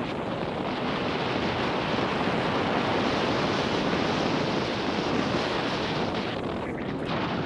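Steady wind rush over a helmet-mounted camera's microphone while riding a mountain bike along a dirt forest singletrack, mixed with tyre and trail noise.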